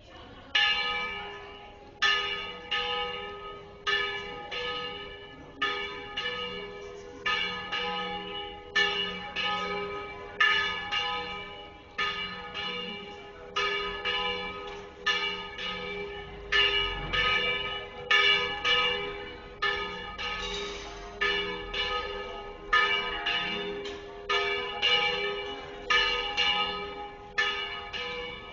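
Church bells of a historic bell tower ringing a peal: a steady run of strokes, a little less than a second apart, each one ringing on into the next.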